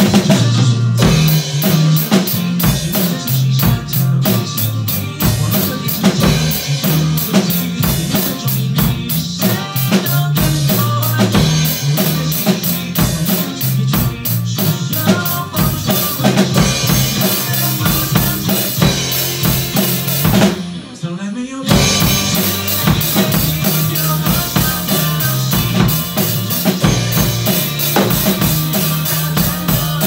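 Acoustic drum kit played with sticks, with bass drum, snare and cymbals in a steady beat, over a backing track with a moving bass line. About 21 seconds in the drums and cymbals stop for about a second, then the beat comes back in.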